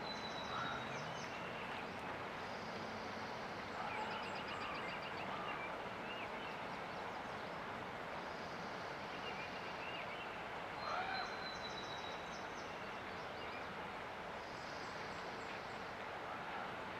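Steady rush of river water with songbirds singing over it: high, quick trilled phrases and a thin whistle, repeating every few seconds.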